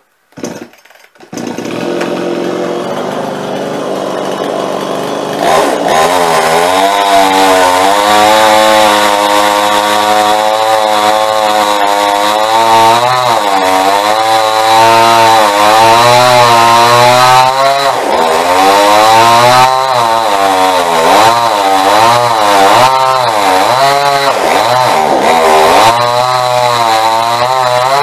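Two-stroke chainsaw coming to life about a second in and running for a few seconds, then cutting through a log from about five seconds in, its engine pitch dipping and rising again and again as the chain bites into the wood.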